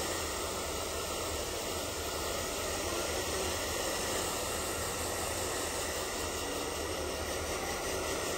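Handheld electric hair dryer running steadily, a constant rush of blown air.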